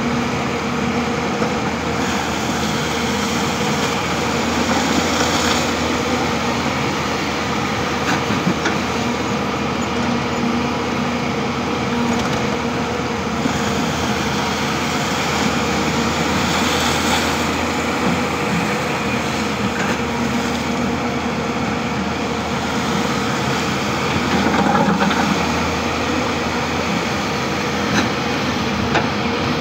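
Diesel engine of a Hyundai 220-9S crawler excavator running steadily as the machine digs with its arm and bucket, the pitch and loudness shifting a little with the hydraulic work and swelling briefly near the end.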